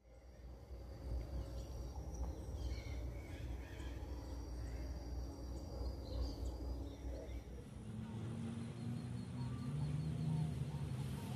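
Outdoor park ambience: a low rumble with faint bird chirps over it, and a steady low hum setting in about eight seconds in.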